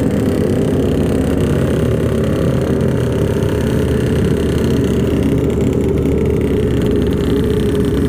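Sportbike engine running steadily at low road speed, heard from on the bike itself.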